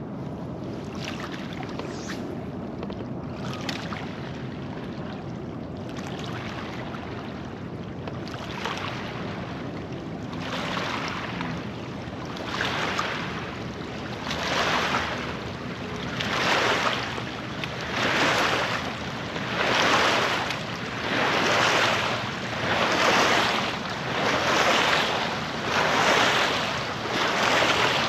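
Water swashing against a fishing kayak in a regular rhythm, about one swash every second and a half, growing louder about halfway through. Underneath runs a steady low rush of wind and water.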